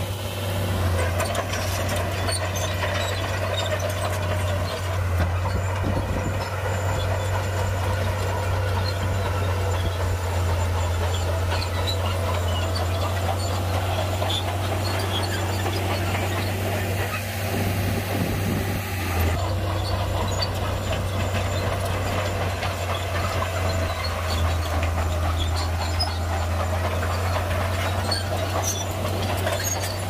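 Shantui bulldozer's diesel engine running steadily with a deep, even drone, with scattered small clicks and clanks over it.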